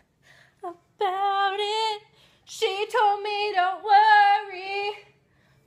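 A woman singing a pop melody in two phrases, a short one about a second in and a longer one from about halfway through.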